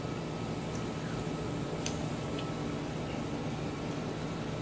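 A steady low background hum, with a few faint clicks of wooden chopsticks and eating about two seconds in.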